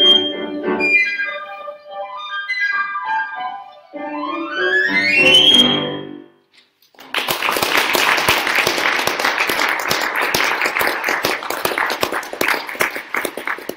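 Piccolo and piano finish a piece with quick runs, closing on a fast rising piccolo run to a high final note about six seconds in. After a short pause, the audience applauds.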